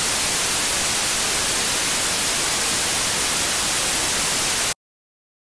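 Loud, steady static hiss of white noise, strongest in the high end, that cuts off suddenly near the end.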